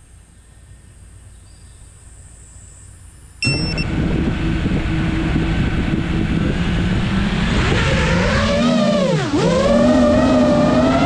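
A 5-inch FPV racing quadcopter's brushless motors and propellers. After about three quiet seconds comes a short beep, and the motors spin up at once into a loud, steady buzzing whine. About eight seconds in, the pitch dips sharply and climbs back as the throttle is cut and opened again, ending higher.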